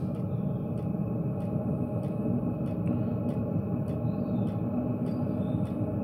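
2 kW Chinese diesel air heater running steadily: a continuous hum from its combustion blower and burner, with a light regular tick a little under twice a second from its fuel dosing pump.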